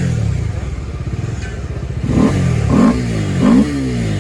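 Bajaj Dominar's single-cylinder engine idling, fitted with an aftermarket air filter, then three quick throttle blips in a row about two seconds in, each a short rising rev.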